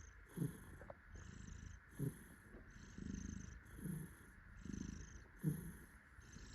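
Domestic cat purring steadily while being held, swelling and easing with each breath, a little more than once a second: the contented purr of a happy cat.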